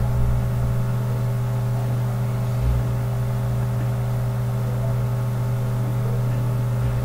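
A steady machine-like hum with a deep, even tone, and a soft low thump about three seconds in.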